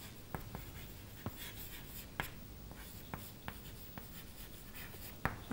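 Chalk writing on a chalkboard: faint scratching with irregular sharp taps as the chalk strikes the board.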